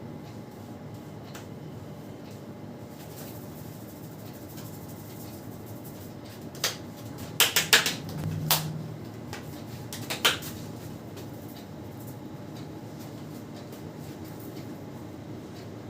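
Hands at work in a head massage: about halfway through, a quick run of five or six sharp smacks or cracks, then one more about two seconds later, over a steady fan or air-conditioner hum.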